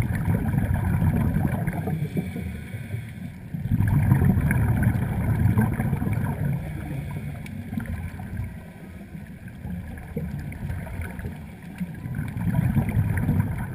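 Muffled underwater rumble and sloshing of water picked up by an action camera in its waterproof housing. It is a low, noisy wash that swells and eases several times.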